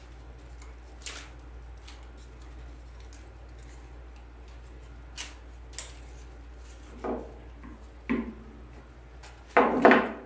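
Silk autumn leaf stems being handled and pulled apart by hand: scattered short clicks and snaps of the plastic stems, with a louder burst of rustling near the end.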